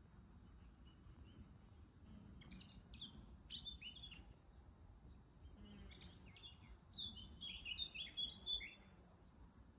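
Faint bird chirps: quick runs of short, falling notes in two spells, one about a quarter of the way in and a longer one near the end.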